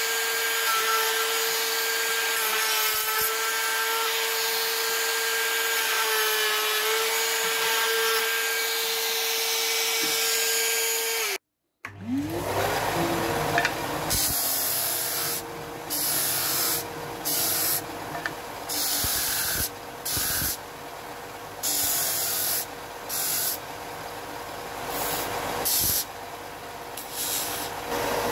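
Compact trim router running with a steady high whine as it routs the edge of a thin wooden strip. After a sudden break about eleven seconds in, a combination belt and disc sander spins up with a rising pitch and runs with a steady hum, broken by about a dozen short, louder bursts of sanding noise as a small wooden piece is pressed against the sanding disc.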